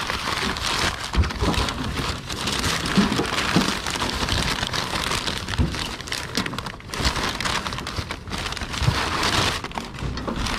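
Crumpled newspaper packing rustling and crackling as hands dig through a cardboard box and unwrap a newspaper-wrapped tin, with occasional soft knocks of handling.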